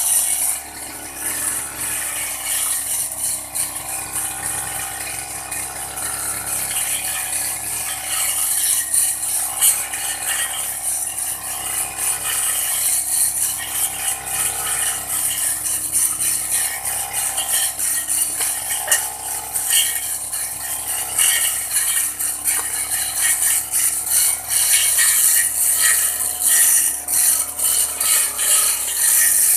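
Old Aldo brush cutter running steadily while cutting grass: a near-constant engine note under a dense, rapid crackle of clicks.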